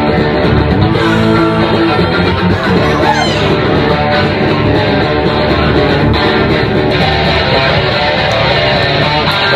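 Punk rock band playing live: loud, steady electric guitar with bass.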